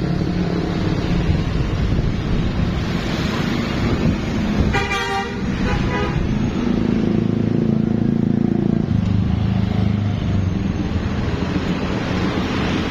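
Heavy vehicle and traffic noise from a bus on the road, with a Basuri 'telolet' multi-tone bus horn sounding. A short horn toot comes about five seconds in.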